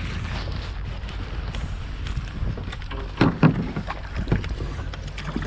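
Wind rumbling on the microphone while a hooked fish is landed. About three seconds in there is a short burst of splashing and knocking as the landing net is dipped and the fish thrashes in it.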